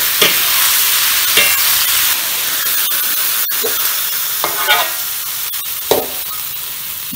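Snake meat, lemongrass and turmeric stir-frying in oil in a steel wok: steady sizzling, with the metal spatula scraping and clicking against the pan several times. The sizzle grows a little quieter near the end.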